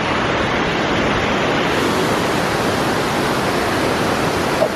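Montezuma Falls waterfall, a loud steady rush of falling water.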